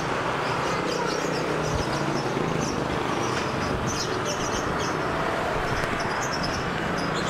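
Motorbike traffic on the street running steadily, with a scooter engine idling close by.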